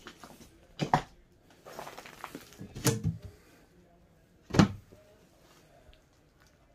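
Wooden knocks and clunks from an old painted wooden cabinet being handled and its door swung open, with a rustling scrape in between; the loudest knock comes about four and a half seconds in.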